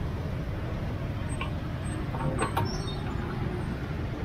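Street traffic noise: a steady low rumble of passing motorbikes and cars, with a few light clicks a little past halfway.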